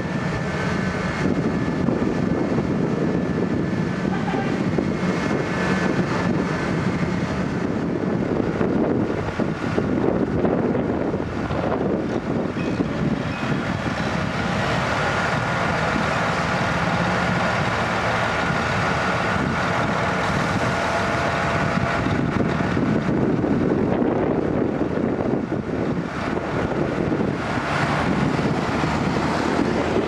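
Diesel engines of a Vögele Super 1800-2 asphalt paver and a Mercedes tipper semi-truck running steadily while the truck's raised trailer tips asphalt into the paver. A thin steady whine rises over the engine noise in the middle for several seconds.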